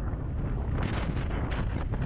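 Wind buffeting a motorcycle-mounted camera's microphone at riding speed, in uneven gusts, over the low running of the motorcycle's engine.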